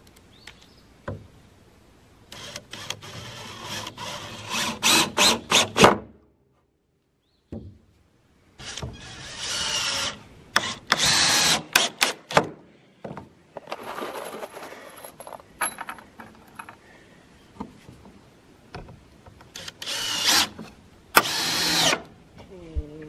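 Cordless drill run in several bursts, drilling into wooden boards, with quick stop-start trigger pulses at the end of some bursts and short pauses between them.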